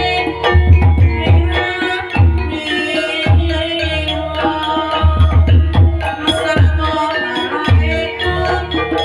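Javanese gamelan music: ringing, held metallophone notes over a running pattern of kendang hand-drum strokes.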